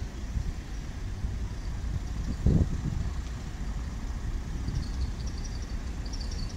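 Town street ambience: a steady low rumble of road traffic, with one brief low thump about two and a half seconds in.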